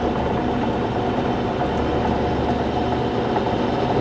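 Mini milling machine running steadily, its cobalt end mill climb-cutting a piece of scrap iron with oil, a continuous grinding cut over the motor's hum.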